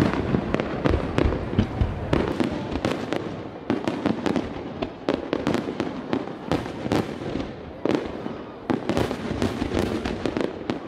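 Aerial fireworks in a rapid-fire barrage: a dense run of sharp bangs and crackling as many shells burst in quick succession.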